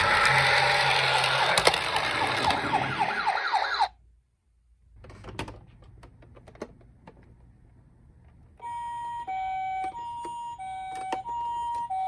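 A toy ambulance's electronic siren over a loud rushing noise, with rapid rising yelps, cutting off suddenly about four seconds in. Then a few plastic clicks as the toys are handled, and from about nine seconds in a second toy ambulance's two-tone hi-lo siren starts, alternating evenly between a higher and a lower note in the Japanese ambulance 'pee-po' pattern.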